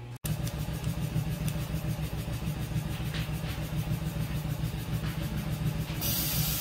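Factory machinery running steadily, with a low hum and a fast, even pulse. A hiss joins in near the end.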